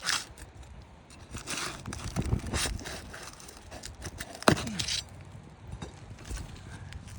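Asphalt roof shingles being lifted and handled: scattered scraping and crackling of the gritty shingle material, with one sharp knock about halfway through.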